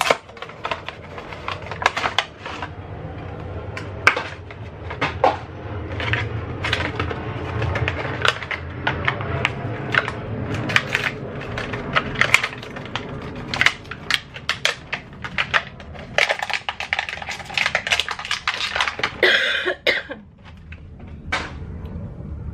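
Hands opening a razor's cardboard box and plastic packaging: a dense run of crinkling, rustling and clicks as the card and plastic are pulled apart, with a short rasping noise near the end.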